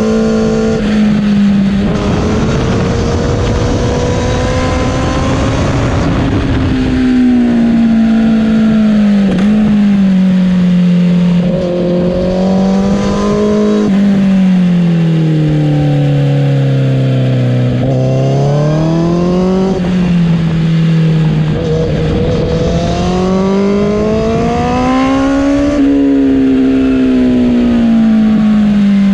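Honda CBR1000RR's inline-four engine pulling under way. Its pitch rises and falls smoothly over several seconds at a time as the throttle is opened and closed through the bends, dropping lowest around the middle and then climbing sharply. Wind and road rush sit underneath.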